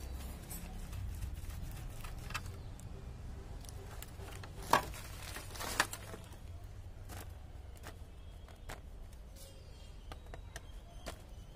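Handling noises from a plastic mixer-grinder housing being turned over and moved about: two sharp knocks about a second apart near the middle, among light clicks and taps, over a low steady background rumble.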